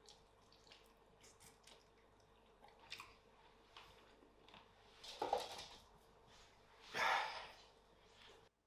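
Small clicks and crunches of a person chewing roast chicken, then two louder noises about five and seven seconds in, the second the louder, as a puppy is picked up and held; the sound cuts off suddenly near the end.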